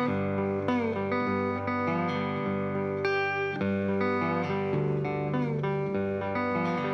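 Instrumental opening of a blues song on slide guitar: plucked notes, some sliding up or down into the next, over a sustained low note.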